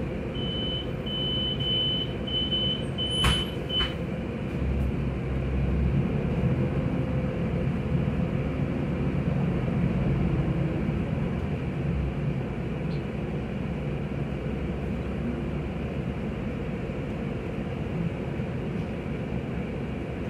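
Inside a Solaris Urbino 12 III EEV city bus: a steady engine and road rumble. About five short electronic beeps in the first few seconds, with a clunk near their end, fit the doors closing. The engine note then rises for several seconds as the bus pulls away, and settles into cruising.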